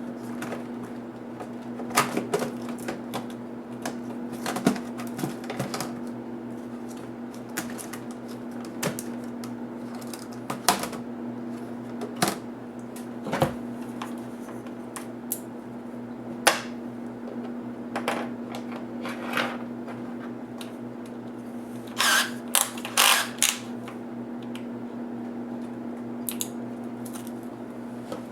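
Irregular clicks and taps of hard plastic and small parts being handled while an HP DV8000 laptop is taken apart, with a quick cluster of louder clicks late on. A steady low hum runs underneath.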